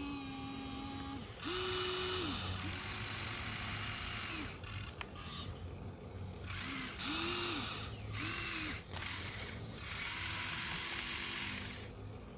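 Huina 1593 RC excavator's electric motors and gears whirring in stop-start bursts of one to two seconds as the boom and bucket move, each burst rising in pitch as it starts and dropping as it stops; the longest bursts come early on and near the end.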